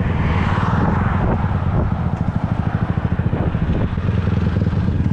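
Motorcycle engine running at low revs with an even, rapid pulsing, heard from a camera on the moving bike. Wind rushes over the microphone in the first second.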